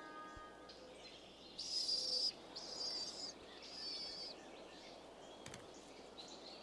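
A small bird's high-pitched call, given three times about a second apart, each lasting about half a second, over faint outdoor ambience.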